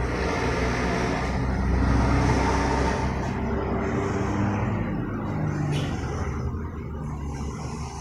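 A motor vehicle passing on the street, its engine and tyre noise swelling about two seconds in and then fading away.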